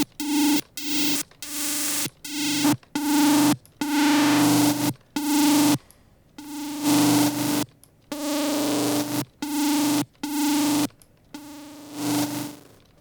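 Distorted FM synth bass played as a run of short, repeated notes on one pitch, each note bright and buzzy, with uneven gaps between them. Near the end a quieter, hazier note sounds.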